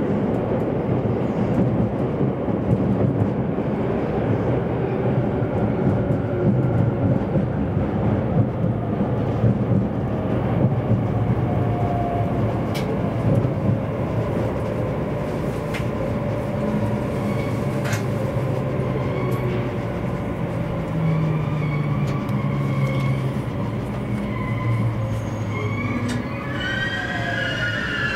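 Cabin noise of an E257-500 series electric express train running in the tunnel into Tokyo's underground terminus: a steady rumble and rail noise with faint shifting motor tones. Near the end a whine falls in pitch as the train slows for its arrival.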